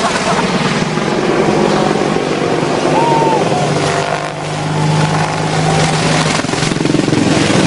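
AH-64 Apache attack helicopter flying low overhead: loud, rapid rotor beat over the steady drone of its twin turboshaft engines. The drone grows stronger about halfway through.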